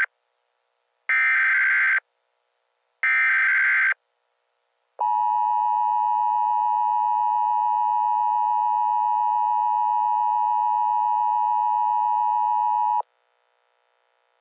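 Emergency Alert System tones. Two one-second bursts of digital SAME header data, then the steady two-tone EAS attention signal, held for about eight seconds before it cuts off abruptly.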